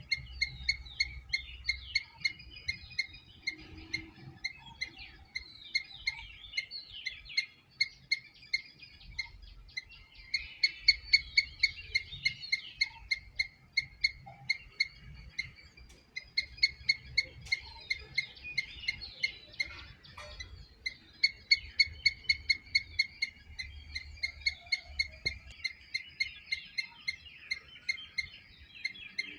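Squirrel chirping loudly and rapidly, about four or five sharp chirps a second, in long runs broken by short pauses, with fainter twittering behind.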